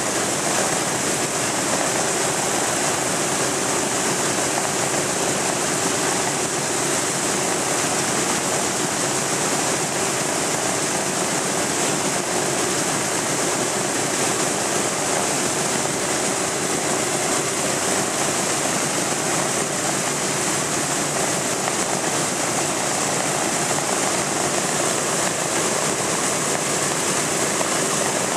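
Boeing B-17 bomber's Wright Cyclone nine-cylinder radial engines idling steadily after startup, propellers turning, with no change in pitch or level.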